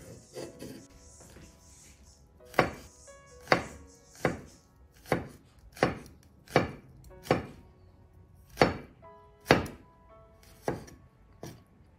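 Chef's knife slicing peeled garlic cloves on a wooden cutting board: sharp knocks of the blade on the board, roughly one a second, with a few softer taps before them.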